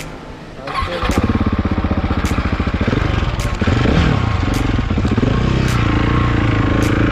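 KTM adventure motorcycle engine pulling away from a stop: quiet for the first second, then the engine opens up about a second in and accelerates, rising and falling in pitch, before running steadily as the bike rides off along the dirt road.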